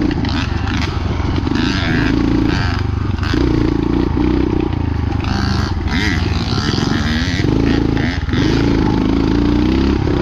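Honda XR200 dirt bike's single-cylinder four-stroke engine running under way on a trail, its pitch rising and falling as the throttle is worked. The engine eases off briefly about eight seconds in.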